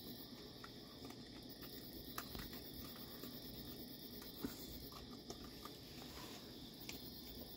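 A steady night chorus of crickets, with faint scattered clicks and crunches of raccoons eating food from metal bowls.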